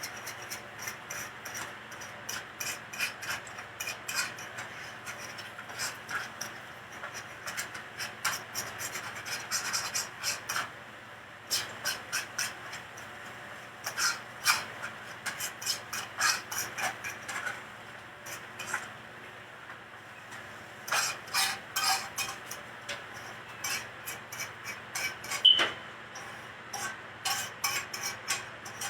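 Kitchen food prep: irregular runs of short scraping and rubbing strokes, with a couple of brief pauses.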